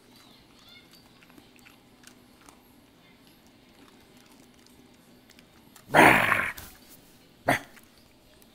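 A dog barks loudly once, about six seconds in, then gives one shorter bark about a second and a half later.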